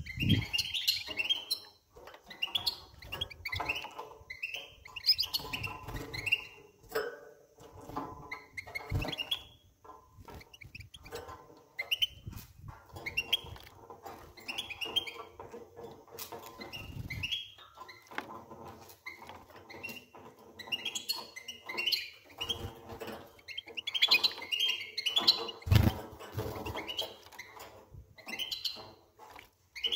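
Young European goldfinches calling over and over with short chirps. Now and then there is a brief burst of wing-flapping and splashing as a bird bathes in a shallow water dish.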